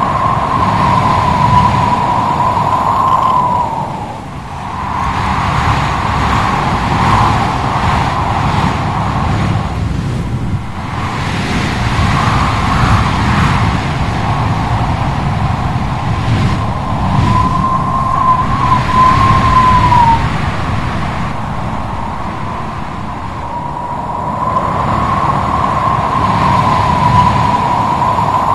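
Howling wind sound effect: gusting wind noise with a wavering whistle held around one pitch. The gusts swell and ease, with the whistle fading out about four seconds in and returning in the middle and near the end.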